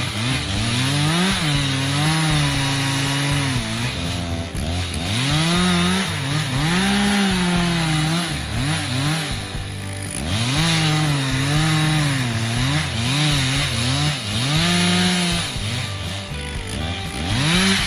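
Chainsaw cutting wood, its engine pitch rising at full throttle and sagging repeatedly as the chain bites into the cut.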